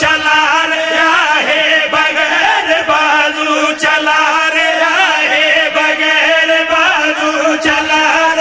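Qaseeda recitation: a man's voice chanting a devotional poem through a loudspeaker system, with a steady low held tone underneath.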